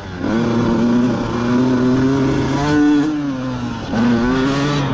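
Two-stroke Honda CR motocross bike engine under throttle on a ride. The revs rise and fall several times, drop off about four seconds in, then climb again.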